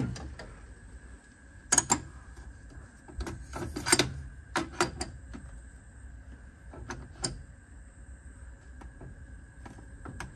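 Adjustable spanner working a bolt on a car's metal dash frame: a series of sharp metallic clicks and knocks as the spanner is set on and turned, loudest about two and four seconds in.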